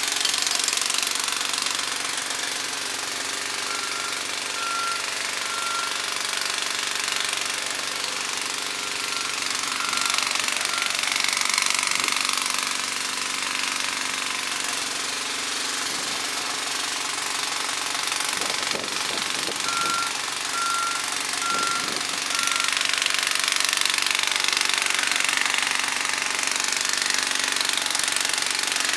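Jackhammer hammering continuously over the steady running of heavy equipment engines. A beeping alarm sounds in short runs of about one beep a second, three times: about 4 seconds in, about 10 seconds in, and about 20 seconds in.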